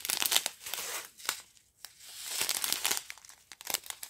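Small zip-lock plastic bags of round diamond painting drills crinkling as they are handled and turned, in several bursts with short pauses between them.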